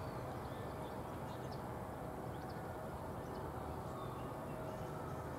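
Quiet outdoor ambience: a steady low background hiss with a few faint, short bird chirps scattered through it.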